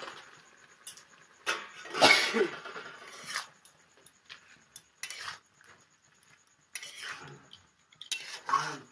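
A metal spatula scraping and clinking against a metal kadai as leafy greens are stirred and turned, in irregular strokes. The loudest is about two seconds in, with shorter bouts later.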